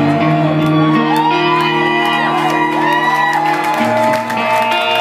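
Live rock band playing, electric guitar with held low notes and drums with cymbals, with whoops and shouts rising and falling over the music.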